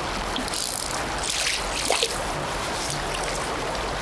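Shallow stream current running steadily over rocks, with a few splashes about half a second to two seconds in as a hooked brown trout thrashes in the shallows.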